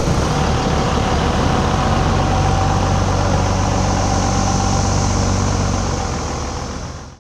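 Engines of a small motor scooter and a pickup truck towing an enclosed trailer running steadily as they pass by, with a low hum and a faint steady whine; the sound fades out near the end.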